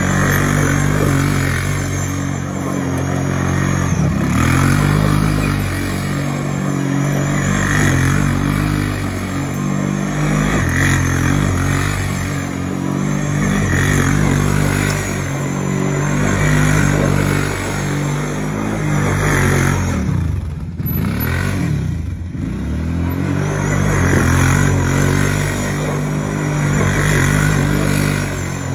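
650 cc quad bike engine revving hard as the bike spins in tight circles on loose dirt. Its pitch rises and falls over and over, and about two-thirds through it eases off briefly before revving up again.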